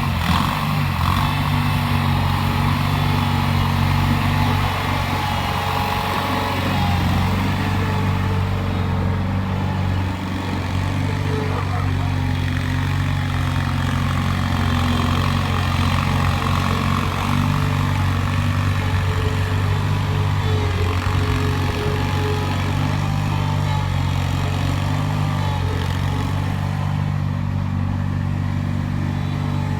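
Engine of a Teramite compact loader-backhoe running steadily at an even speed, with small shifts in pitch.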